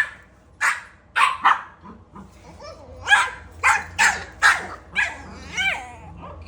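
Dog barking excitedly at a mop, a run of about eight short, sharp barks, then a drawn-out whining yip near the end.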